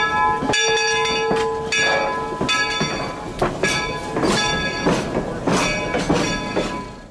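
4-4-0 steam locomotive's bell ringing steadily, about one stroke every 0.7 seconds, as the engine rolls slowly past.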